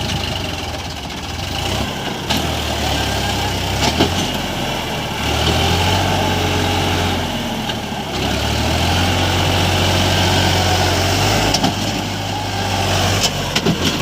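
Heavy diesel machinery engine running, its low hum stepping up and down in pitch as the load changes, with a few sharp knocks.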